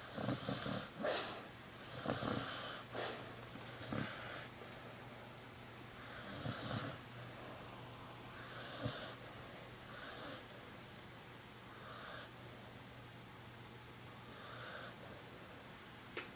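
A sleeping puppy snoring, with a thin whistling wheeze on each breath about every two seconds; the first few breaths are the loudest.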